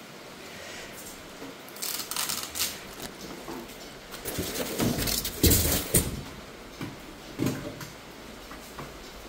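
Clattering knocks and rattles from something being handled: a cluster about two seconds in, a louder cluster around five to six seconds with the sharpest knock, and a smaller one near seven and a half seconds.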